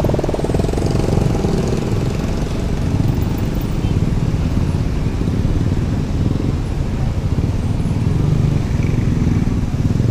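Many small motorcycles and scooters running past in a steady stream, engines droning as the traffic moves across the tracks once the barrier has opened.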